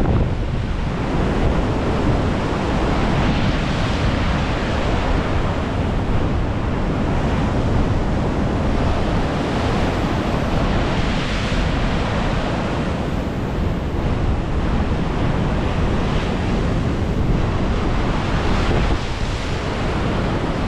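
Ocean surf breaking steadily below, swelling louder every few seconds as waves come in, with wind rumbling on the microphone.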